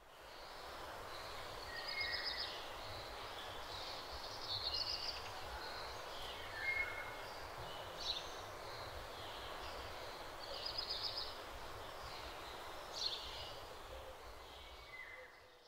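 Small birds chirping and trilling, repeated high short calls and a few falling chirps, over a steady outdoor background hiss. It fades in at the start and fades out near the end.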